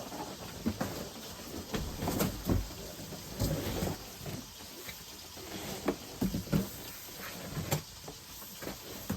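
Cardboard box and packing being handled while a heavy unit is worked out of it: irregular knocks, clicks and scrapes over rustling.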